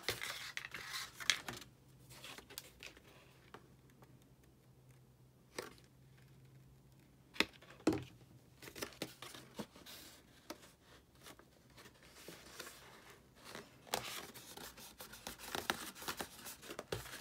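Grey 67 lb cardstock rose petals rustling and crinkling as they are handled and pressed together, with a few light clicks about halfway through.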